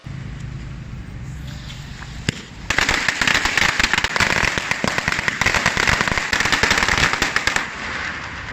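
Dense, rapid crackling starts about three seconds in and runs for some five seconds, after a low steady hum.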